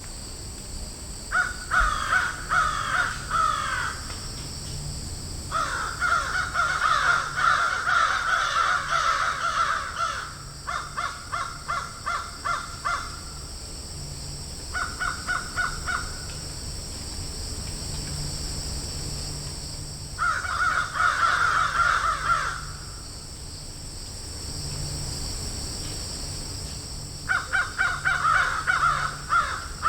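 Crows cawing in a field, in bouts of rapid repeated caws with several birds overlapping at times, broken by pauses of a few seconds. A steady high hiss runs underneath throughout.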